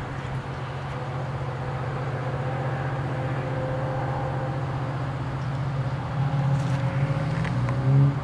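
Diesel locomotive engine drone from an approaching train: a steady low rumble that grows slowly louder, with a brief louder swell near the end.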